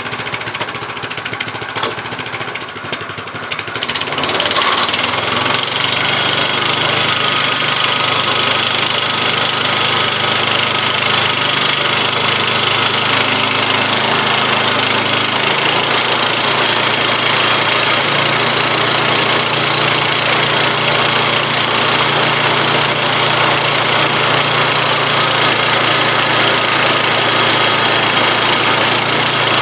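Harbor Freight portable bandsaw mill with its gasoline engine running steadily. About four seconds in the sound grows louder and a bright, rushing noise joins and holds, as the new band blade cuts through a log on a test cut.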